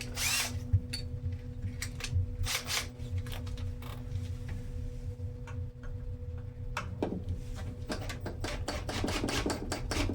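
Irregular clicks and clattering of hand tools and small metal hardware being handled, the clicks coming thicker near the end, over a steady low hum.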